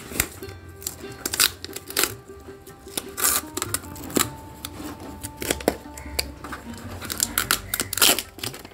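A delivery package being handled and opened by hand: irregular clicks, rustles and crinkles. Music plays in the background.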